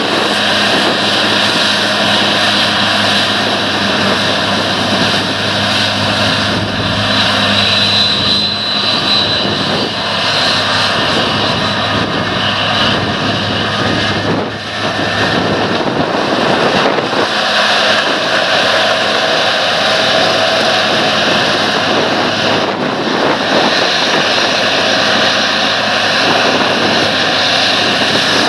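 John Deere combine harvester running under load while cutting wheat: a steady, loud engine drone mixed with the rush and high whine of the threshing and cleaning machinery.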